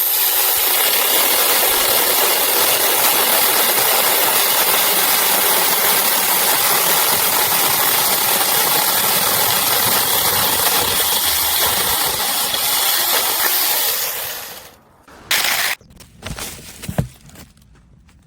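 Sukumo 6-inch cordless electric chainsaw running with a steady, hissy noise, then running down and stopping about 14 seconds in, followed by a few short knocks.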